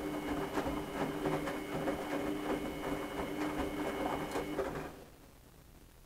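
Haier front-loading washing machine tumbling a wet load: a steady motor hum and whine from the turning drum, with the clothes and water sloshing and pattering inside. It cuts off about five seconds in.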